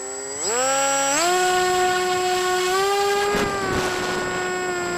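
Electric motor and propeller of a Dynam Hawk Sky foam RC plane, heard from a camera on the plane. The whine steps up in pitch twice in the first second as the throttle opens, then holds a steady high whine, with gusts of wind noise past the microphone near the middle.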